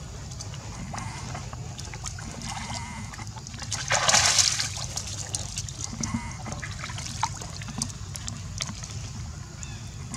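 Long-tailed macaques swimming in a pool: water splashing and sloshing with many small splashes, and one louder splash about four seconds in.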